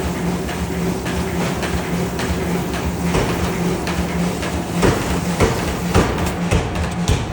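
Forging-factory machinery: a steady low hum with irregular metal clanks and knocks over it.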